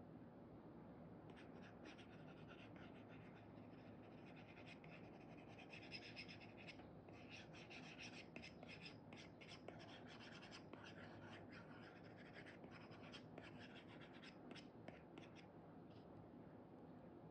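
Faint scratching of an Apple Pencil 2's Elecom nib on an iPad's paper-feel screen film, in many short, quick drawing strokes that begin about a second in and stop near the end, over a low steady room hum.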